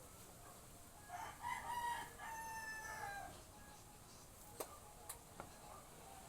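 A rooster crowing once, about a second in, for about two seconds, followed by three sharp clicks.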